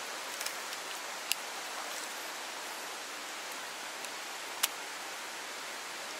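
Steady hiss of a fast-flowing river current, with two sharp clicks, one about a second in and a louder one a little after the middle.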